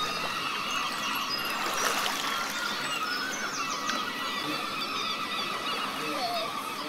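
Outdoor ambience: a steady background hiss with many scattered short bird calls and chirps.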